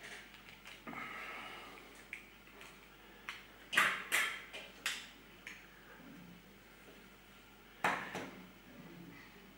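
A few sharp clicks and knocks in a small room: a quick cluster about four seconds in and a single louder one near the end, with fainter ticks between.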